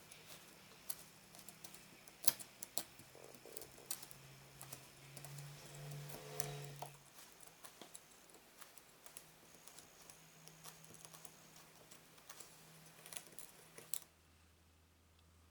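Scattered light clicks and taps of small parts being handled, with one sharper click a couple of seconds in, over a faint low hum; it all goes quieter near the end.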